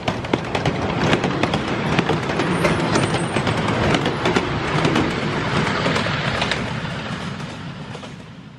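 Miniature-railway train, a small steam locomotive hauling open passenger carriages, passing close by with a rapid run of wheel clicks over the rails. The sound fades away over the last couple of seconds as the train moves off.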